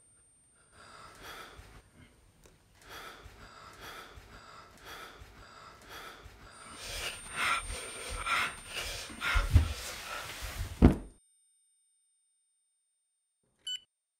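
A rhythmic pulsing of about two beats a second builds in loudness, then ends in two heavy thumps and cuts off suddenly to silence. Near the end a short electronic beep sounds from the printer's display.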